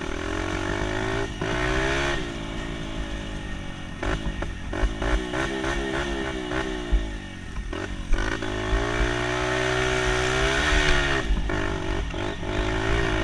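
Dirt bike engine revving up and down as it is ridden, with short knocks and clatter from the bike. A longer pull in the second half drops off about two seconds before the end.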